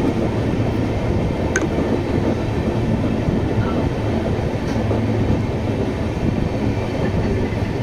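Steady rumble of a moving passenger train, its wheels and coaches running along the track, heard from an open window beside the coach. A brief faint tick comes about a second and a half in.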